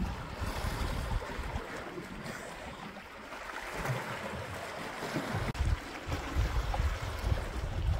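Sea swell washing against the rocks at the waterline, with gusts of wind rumbling on the microphone, strongest near the end.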